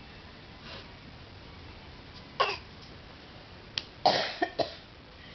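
A young child giving short pretend coughs, imitating a grown-up's cough: one a little over two seconds in, then a quick run of three near the end.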